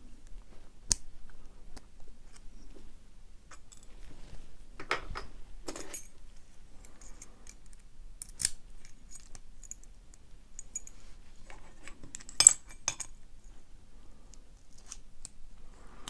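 Small metal padlock parts clicking and clinking as the lock's brass core is taken apart by hand, with scattered light clicks and a sharper clink about twelve seconds in.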